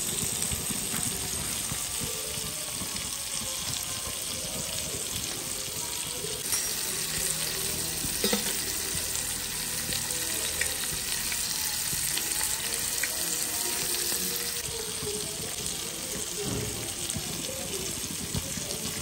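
Spice-coated fish pieces shallow-frying in oil on a flat pan, a steady sizzle with a few small pops.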